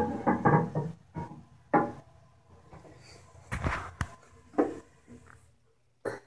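A series of short knocks and clunks, about six in all. The loudest, right at the start, rings briefly; the later ones are smaller and scattered.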